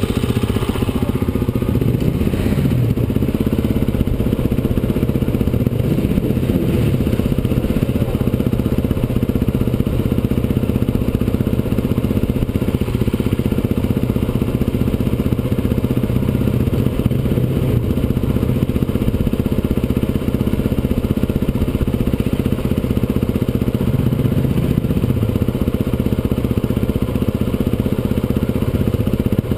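Enduro dirt bike engine running steadily at low revs, an even drone with no revving.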